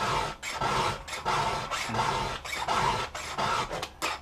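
Round chainsaw file rasping across the steel cutter teeth of a skip-tooth saw chain in repeated strokes, about two a second. It is a quick touch-up sharpening of teeth dulled by cutting in rocks.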